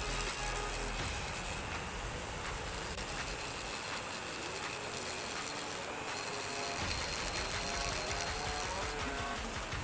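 Flexible-shaft rotary tool with a small burr grinding aluminium inside a port of a Yamaha Jupiter Z motorcycle cylinder head during porting. It makes a steady high whine with a grainy grinding noise, easing briefly about six seconds in.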